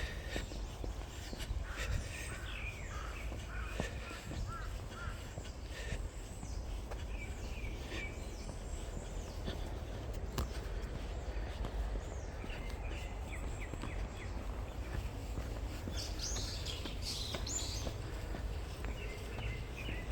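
Forest birds chirping and calling, several short overlapping calls and quick gliding notes that come and go, busiest near the start and again about three-quarters of the way through, over a steady low background rumble.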